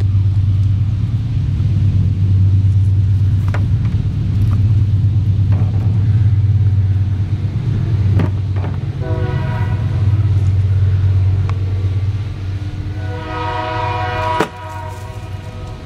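Automatic dog ball launcher fires with a single sharp snap about fourteen and a half seconds in. Under it runs a steady low rumble, and a drawn-out horn-like tone sounds around nine seconds in and again just before the snap.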